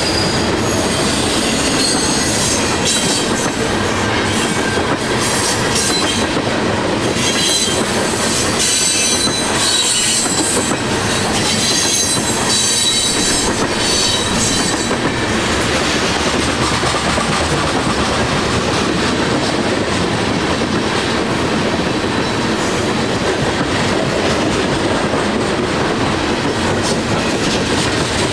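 Freight train cars rolling past close by, a steady rumble and clatter of steel wheels on the rails. Through roughly the first half there is a high, wavering wheel squeal, which dies away about midway while the rumble goes on.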